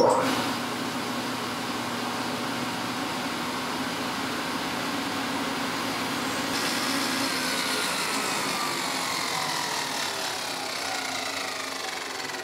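Table saw fitted with a dado set switching on and running steadily. In the second half the pitch falls as the cutter head winds down.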